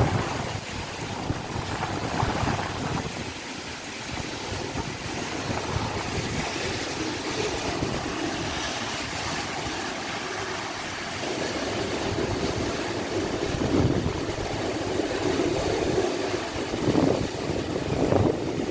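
Tropical-storm wind and heavy rain in a steady rush, with gusts buffeting the microphone, strongest near the end.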